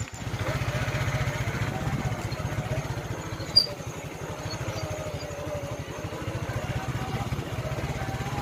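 Motorcycle engine running steadily as the bike rides along a dirt track. A single sharp knock sounds about three and a half seconds in.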